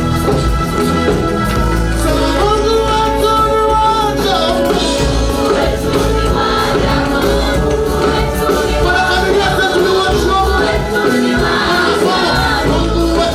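Live gospel praise music: voices singing held, sliding notes together over an instrumental band with a strong, steady bass.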